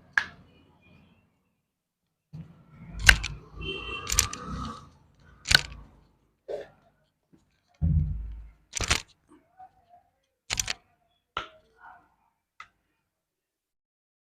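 Chiropractic manipulation of a patient's body: a series of sharp cracks and clicks, with dull thuds about three seconds in and again about eight seconds in.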